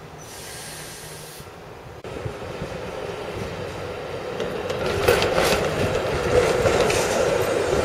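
A TTC streetcar approaching and passing close: the running noise of steel wheels on rails grows steadily louder from about two seconds in. Harsher bursts of wheel and track noise come about five to seven seconds in.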